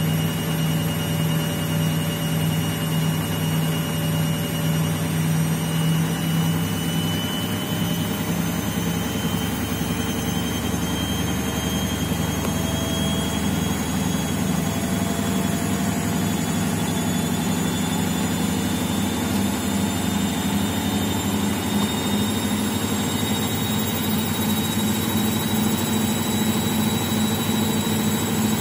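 Indesit front-loading washing machine on an unbalanced spin: a steady motor and drum hum with a thin whine that rises slowly in pitch as the drum gradually gains speed. The low hum changes character about eight seconds in.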